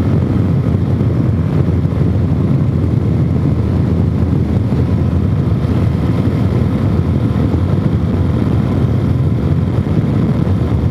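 Suzuki DR-Z400S single-cylinder four-stroke engine, with freshly rejetted carburettor and aftermarket exhaust, running at a steady cruising speed, mixed with wind rushing over the microphone. The sound is steady throughout, with no revving or deceleration popping.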